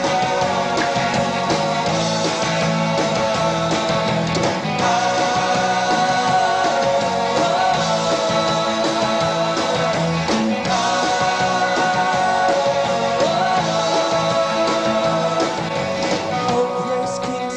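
Rock song played by a band of electric guitars, bass and drums, with a lead vocal singing over it.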